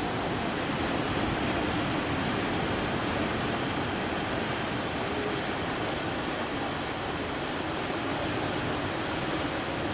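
Steady rushing noise of surf and wind at a river mouth, even throughout with no single wave standing out.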